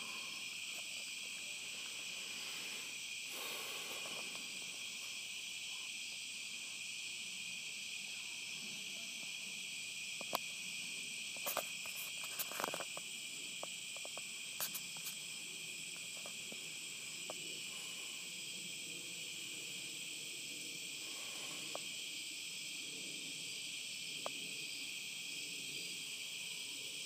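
Steady, unbroken chorus of insects in the woods. A few sharp clicks come around the middle, louder than the chorus.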